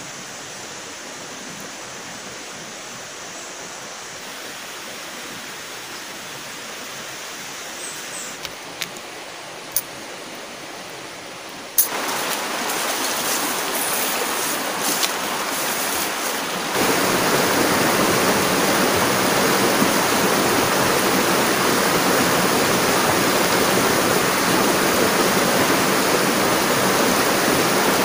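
Shallow stream rushing over stones, a steady hiss of water that gets louder in two sudden steps, about twelve and seventeen seconds in. Before that, a quiet forest background with a few sharp clicks.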